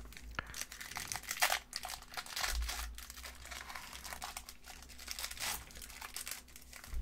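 Plastic wrapper of a trading-card booster pack being torn and peeled open by hand, crinkling irregularly.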